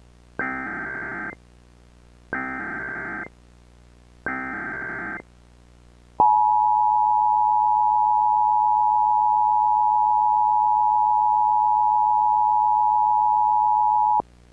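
Emergency Alert System alert opening: three short bursts of buzzing data tones, about a second each and two seconds apart, then the steady two-tone attention signal held for about eight seconds before it cuts off sharply. It announces an incoming emergency alert message.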